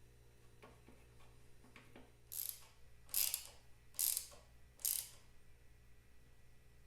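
Four short rasping mechanical strokes, about one a second, with a few faint clicks before them.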